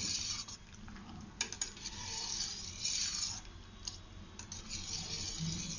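A steel spoon stirring and scraping around a stainless-steel pot of hot milk mixed with dissolved china grass (agar) and sugar syrup, with a few light clinks of spoon on pot over a soft steady hiss.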